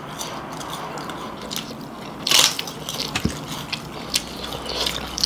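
Close-up eating sounds: crunchy chewing and biting with many short sharp clicks, the loudest crunch a little over two seconds in.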